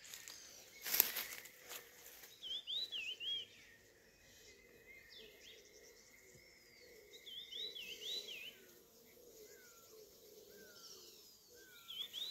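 A small bird singing in short bouts of quick up-and-down chirps, three times over, against faint outdoor background. A single sharp knock or rustle about a second in is the loudest moment.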